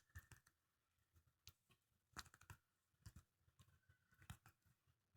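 Near silence broken by faint, scattered taps on a smartphone touchscreen, a dozen or so short clicks, some in quick little clusters about two and three seconds in and again near the end.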